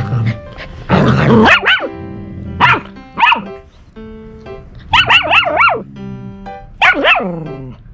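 White English golden retriever puppy barking in short, high-pitched yaps that rise and fall in pitch, several bursts in a row, over background music.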